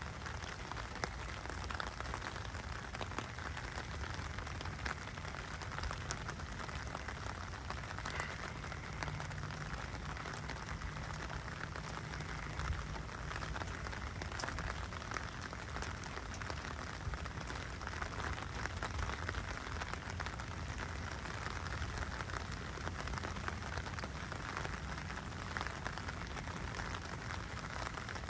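Steady rain falling on a wet street, with many small, sharp drop ticks close by.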